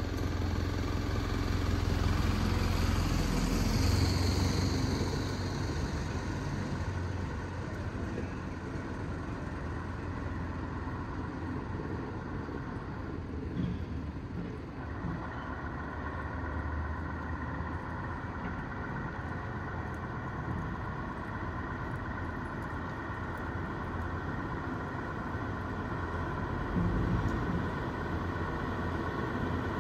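Road vehicle engines: one vehicle passes close and loud in the first few seconds, then a steady engine hum carries on, with a faint steady whine joining about halfway.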